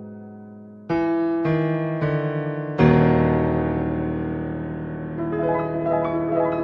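Slow, melancholy solo piano music: sustained chords struck one after another, then a loud deep chord about three seconds in that rings out. Quicker notes come in near the end.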